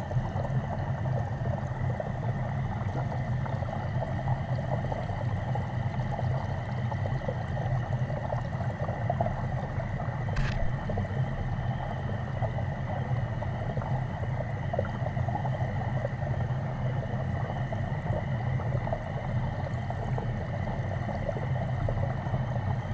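Steady churning of circulating water in a fish tank, heard underwater: a constant low rumble with a bubbling hiss and a faint steady high whine. One short click about ten seconds in.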